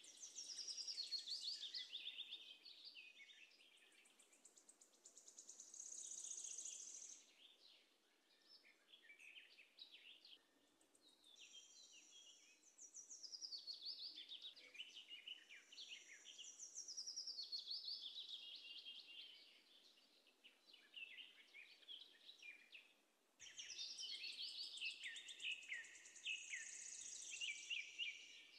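Small birds chirping and trilling in rapid warbling phrases, in several bouts with short pauses between.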